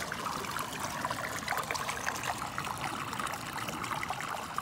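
Water trickling and splashing steadily, a continuous patter of small irregular drips and splashes.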